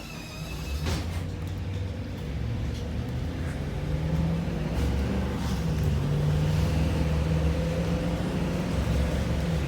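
Motor vehicle engine and road noise building as the vehicle pulls away, with the engine pitch rising over the first few seconds and then holding steady as it cruises.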